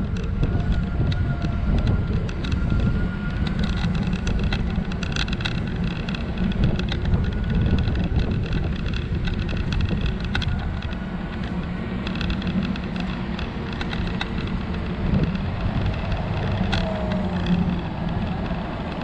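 Wind noise on the microphone over the tyre noise of a scooter rolling along a city street: a steady low rumble with scattered light clicks.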